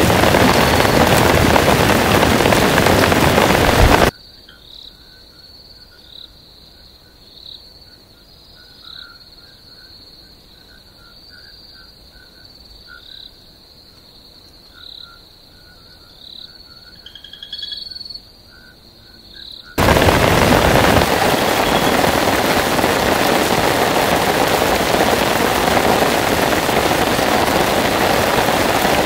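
Heavy rain, a steady hiss, that cuts off suddenly about four seconds in. A quieter night chorus of insects and frogs follows: a steady high trill with chirps every second or two over lower pulsed calls. Heavy rain comes back just as suddenly about twenty seconds in.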